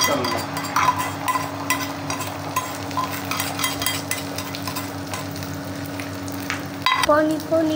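Beaten egg sizzling and crackling in hot oil on a flat iron griddle (tawa). A knife scrapes and taps the last of the egg out of a steel bowl.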